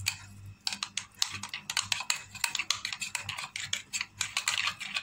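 Metal spoon stirring thick mayonnaise-based sauce in a glass bowl: quick, irregular clicks and scrapes of the spoon against the glass, starting about half a second in.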